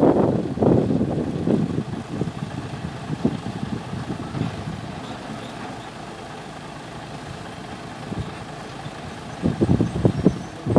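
Vacuum tanker truck's engine running steadily while its raised tank is emptied, with loud irregular bursts of noise in the first two seconds and again near the end.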